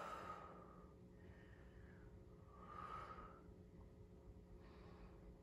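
A woman's faint breaths, about three in all and a couple of seconds apart, as she holds a bound side angle yoga pose, over near-silent room tone.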